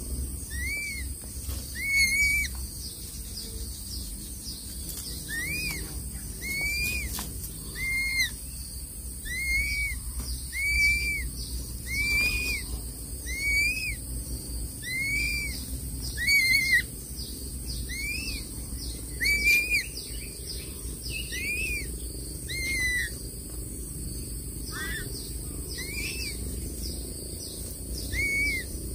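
Crested serpent eagle calling: a short whistled note that rises and falls, repeated about every second and a half, some twenty times, with a few longer pauses. A steady high insect hiss runs underneath.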